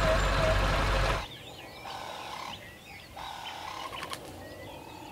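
Small birds chirping and calling, many short rising and falling chirps. For about the first second a loud steady engine-like noise covers them, then cuts off suddenly.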